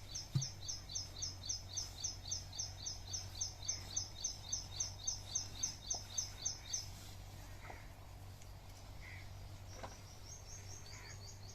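A small bird calling a fast, even run of high chirps, about five a second, for about seven seconds, then a second, quicker run near the end.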